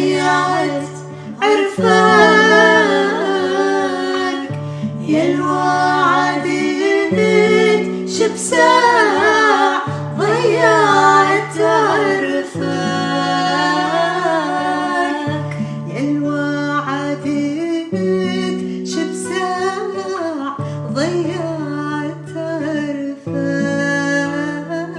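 Iraqi song: a sung, ornamented melody over plucked strings, with a bass line that moves to a new note every couple of seconds.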